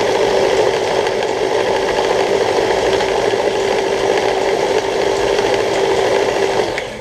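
Electric mini food chopper running steadily with a constant hum, its blade whirling onions into a paste, then switching off near the end.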